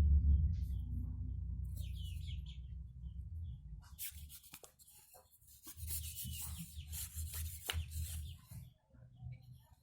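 Scraping and rubbing strokes of handwork on bamboo, strongest from about four seconds in, with birds chirping now and then. A low rumble comes before the strokes.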